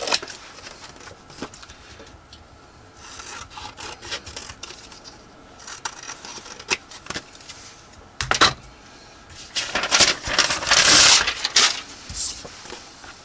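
Scissors snipping through paper and card, with paper rustling and rubbing as the excess is trimmed away; the loudest rustling comes about eight seconds in and again from about ten to twelve seconds.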